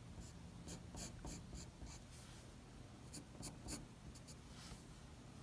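Faint scratching of a pencil on paper in short sketching strokes, coming in small clusters.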